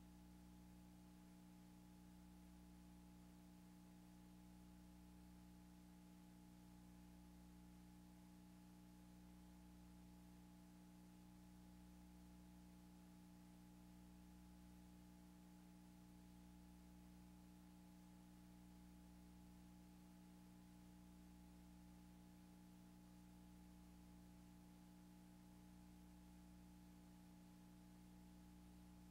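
Near silence: a faint steady hum with hiss from the playback of a blank stretch of old videotape.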